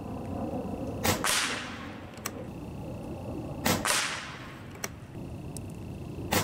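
Evanix Hunting Master AR22 regulated PCP air rifle firing three shots about two and a half seconds apart, the last right at the end. Each shot is a sharp crack followed by a short, fading hiss. A faint click follows about a second after each of the first two shots.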